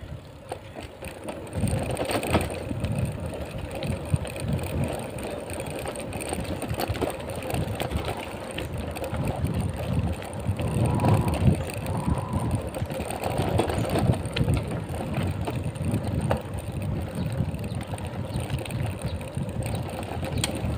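Riding a bicycle along a dirt path: wind buffeting the microphone and the rumble of the tyres on the rough surface, with an occasional knock from a bump.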